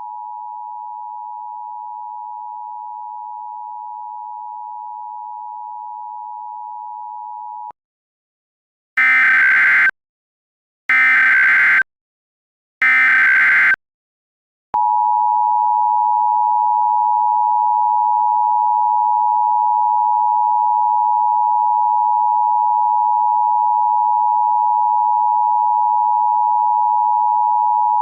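Emergency Alert System activation tones. A steady tone runs until about eight seconds in and stops. After a short silence come three one-second bursts of screeching SAME header data, two seconds apart. About fifteen seconds in the louder two-tone EAS attention signal starts and holds steady.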